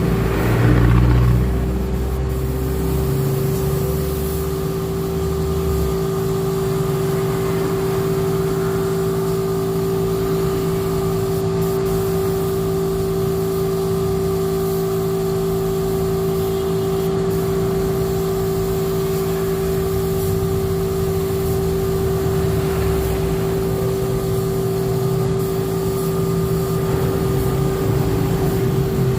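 A machine running steadily with a constant mid-pitched hum, with a heavier low rumble in the first few seconds that then drops away.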